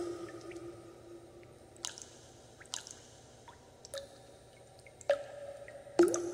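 Irregular dripping: water drops fall about once a second, each a sudden plink with a short ringing tone. The loudest drops come right at the start and about six seconds in.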